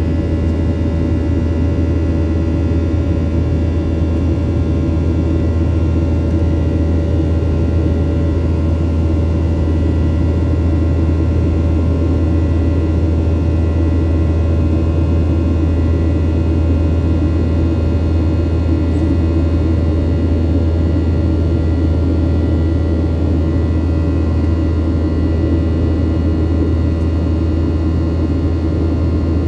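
Cabin noise of a Boeing 737-800 in climb, heard from a window seat over the wing: the steady drone of its CFM56-7B turbofans, a deep low rumble with several thin steady whining tones over it, unchanging throughout.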